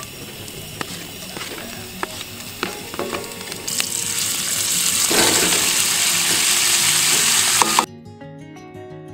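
Sliced andouille sausage dropped into a hot oiled cast-iron skillet, the pieces landing with short clicks over a light sizzle. About four seconds in, the frying swells into a loud, steady sizzle, which cuts off suddenly near the end and gives way to soft music.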